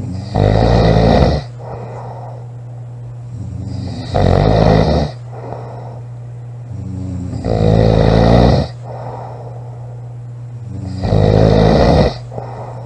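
A woman snoring loudly: four heavy snores about every three and a half seconds, each lasting about a second and building up from a softer breath. A steady low hum runs underneath.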